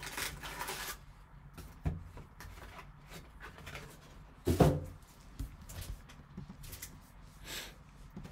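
Trading-card packs and a cardboard box being handled on a table: a rustle at the start, then scattered knocks and taps as things are set down, the loudest about halfway through.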